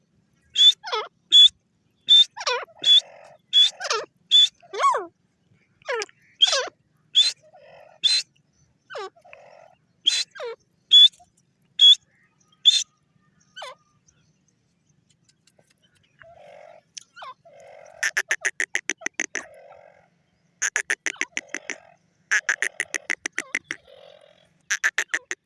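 Grey francolin calling: a run of loud, sharp notes that each drop steeply in pitch, then, after a short pause, four rapid rattling bursts of about a second or more each.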